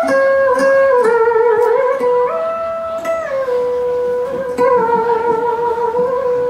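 Cải lương music: a single melodic line of long held notes that slide from one pitch to the next, some of them wavering, with light taps in the first second or so.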